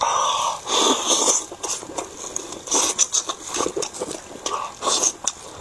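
Close-miked eating sounds: a bite into tender chicken, then chewing and mouth smacks, heard as irregular clicks and short squelchy bursts.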